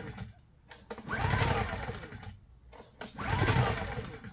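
Honda EU1000i inverter generator being pull-started without the choke: two pulls on the recoil starter, each a whirring crank of a little over a second, with the engine not yet catching.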